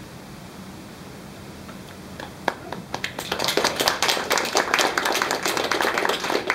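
Audience applauding: a few scattered claps about two seconds in, quickly building into dense, steady clapping.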